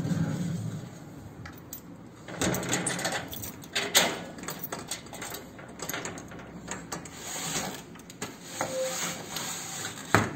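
Padlock and latch on a wrought-iron security gate being worked by hand: irregular metal clicks, scrapes and rattles, with a sharp click about four seconds in. Near the end an aluminium door frame with a fly screen is handled, with another sharp click. A low rumble fades out in the first second.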